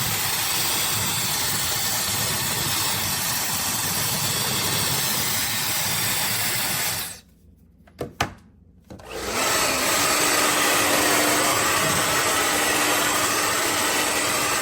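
High-speed hair dryer blowing with a steady rush of air. About seven seconds in it is switched off, there is a click, and a couple of seconds later it starts up again. It then runs steadily with a faint motor hum and begins to wind down near the end.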